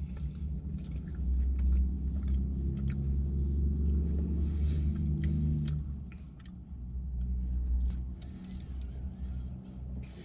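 Chewing and biting on chocolate candy with cookie pieces, with scattered small crunching clicks, over a steady low rumble. A low hum runs through the first half and drops away about six seconds in.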